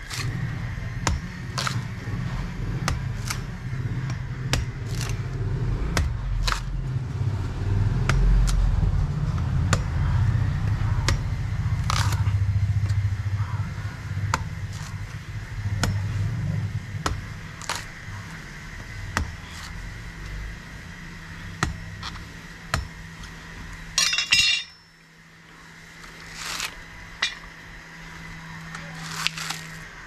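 A machete chopping coconuts: sharp knocks repeated at uneven intervals, with a short loud scraping rasp about three-quarters of the way through. A steady low engine-like hum runs underneath.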